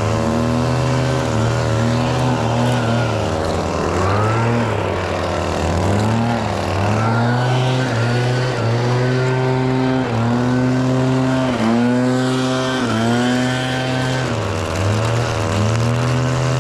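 ECHO SRM-2620T two-stroke string trimmer running at high revs. Its pitch repeatedly dips and climbs back every second or two as the throttle is eased and squeezed and the line cuts into grass.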